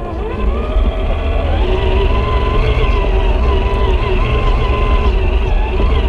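Scale RC crawler's electric motor and geartrain whining steadily as the truck drives, the pitch rising a little just after the start and then wavering, over a steady low rumble.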